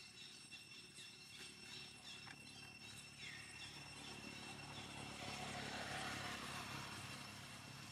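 Faint outdoor ambience: a steady insect drone with a short chirp repeating a few times a second, and a rushing noise that swells through the middle, peaks about three-quarters of the way in, and fades.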